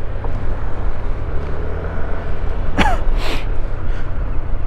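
Steady low rumble of wind on the microphone and the Yamaha XMax scooter's engine while riding, with a brief falling squeal about three seconds in.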